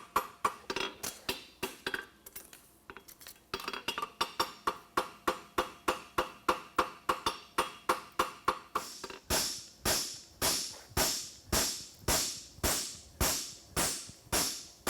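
A hammer striking a steel horseshoe on an anvil in a steady run of ringing blows, about three or four a second. The blows ease off briefly about two seconds in, then grow harder and brighter in the second half.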